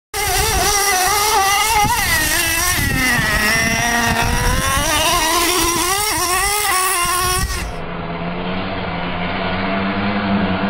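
Traxxas Slayer Pro 4x4 RC truck's TRX 3.3 two-stroke nitro engine revving up and down as the truck is driven hard. About seven and a half seconds in, the sound switches to a duller, steadier engine note.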